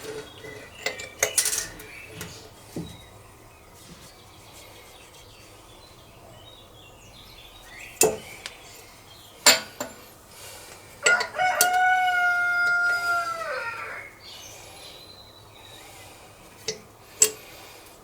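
A rooster crows once, a long held call of about three seconds that drops in pitch at the end. It is set among a few sharp metallic clinks of small parts and tools being handled on the bench.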